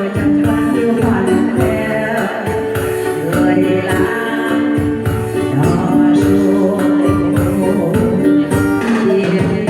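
Music: a Vietnamese song with held melody notes over a steady beat.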